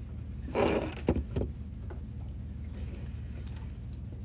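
Plastic typodont dental model being handled and set down on a tabletop: a brief scrape about half a second in, then a few light knocks, then only faint small ticks.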